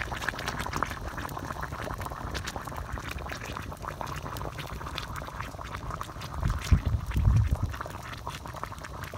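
Water boiling hard in a wok, a steady bubbling made of many small pops. About six and a half seconds in there are a few louder low thuds lasting about a second.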